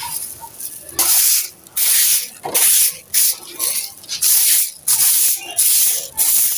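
Dry, gritty sand cement being worked by hand, giving about eight rasping, grainy strokes a little more than one per second.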